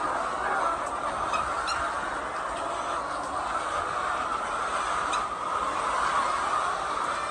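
A flock of laying hens clucking together, a steady dense din with a few sharper calls standing out now and then.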